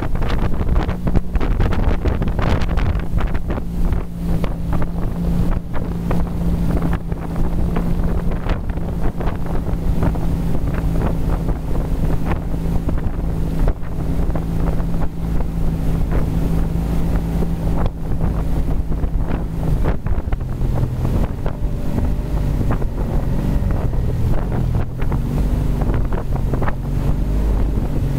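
Mastercraft ProStar 190 ski boat running at speed: the inboard engine's steady drone under rushing water from the wake and wind buffeting the microphone. About two-thirds of the way in, the engine note drops to a lower pitch and starts to waver.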